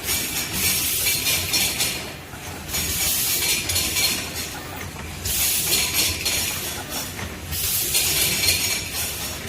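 Stick-pack automatic packaging machine for fine powder running, a hissing, clinking mechanical noise that swells and dips in a regular cycle about every two and a half seconds.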